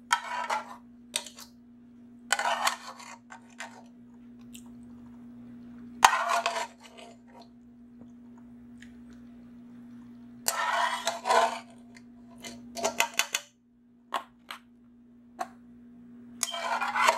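A utensil scraping and spreading meat sauce in a disposable aluminium foil pan, the foil crinkling and rattling in several short bursts, with a quick run of clicks about three-quarters of the way through. A steady low hum runs underneath.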